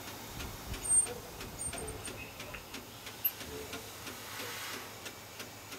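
Steam locomotive 423.0145's cab at rest: scattered faint clicks and knocks from the fittings, a sharper click with a brief squeak about a second in, and a short hiss of steam a little past four seconds in.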